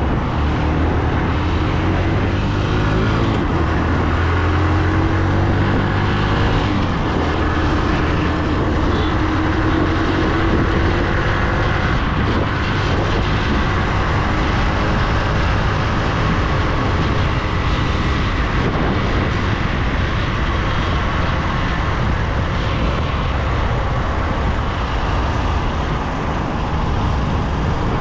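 Motorcycle engine running while the bike rides along, under a steady rush of wind and road noise. Over roughly the first ten seconds the engine note climbs slowly as the bike accelerates, then it holds steady.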